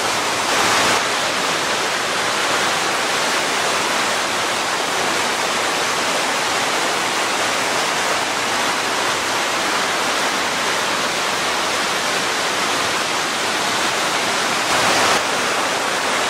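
Steady loud rushing of river water flowing below, an even hiss with no breaks, briefly a little louder about a second in and again near the end.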